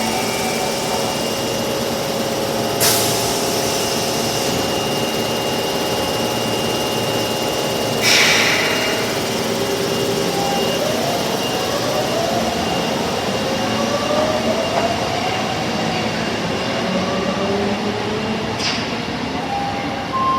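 Tanimachi Line 22 series subway train running, with a steady electrical hum, three short hisses, and from about halfway a motor whine that rises in pitch in repeated sweeps as the train picks up speed.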